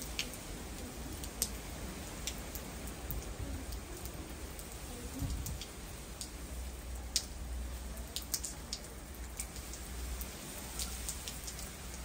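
Light rain falling, a steady hiss with scattered sharp ticks of single drops striking close by.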